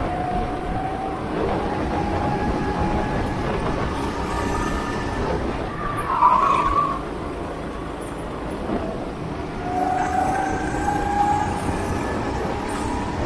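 Go-kart engine running at racing speed, its pitch rising and falling with the throttle, with a brief high squeal about six seconds in.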